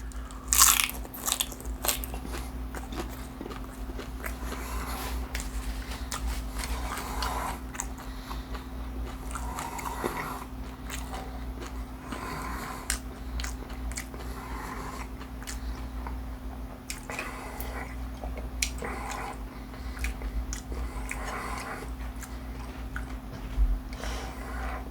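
Close-miked biting and chewing of a crispy fried fish taco, with a loud crunchy bite about a second in, then steady wet chewing with small crunches.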